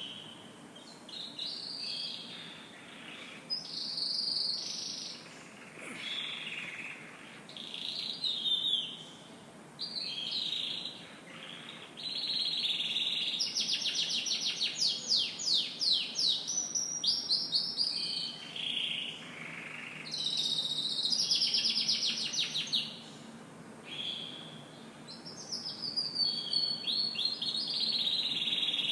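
Domestic canary singing: a string of high phrases and rapid trills broken by short pauses, turning into longer stretches of fast trilling from about halfway.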